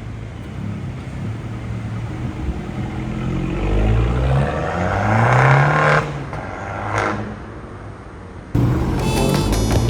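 Abarth 500 car engine accelerating, its pitch rising for a couple of seconds before dropping away, followed by a single sharp click.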